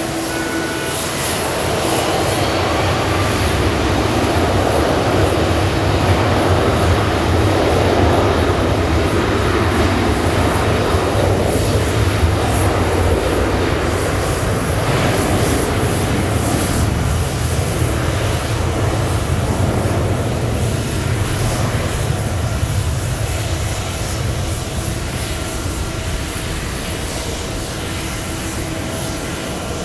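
Boeing 777 airliner's twin jet engines running at taxi power, a steady rumble with a whine that swells as the aircraft passes close and then fades as it taxis away.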